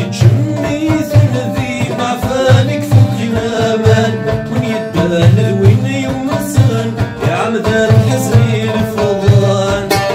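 Oud plucked with a plectrum, and a man singing a folk song over it, with a steady low beat underneath.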